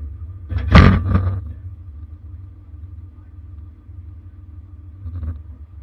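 Chevy 2500HD diesel engine running with a steady low rumble. A loud metal clunk comes about a second in as the B&W Companion slider fifth-wheel hitch is dragged back along its rails against the locked trailer brakes. A lighter knock follows near the end.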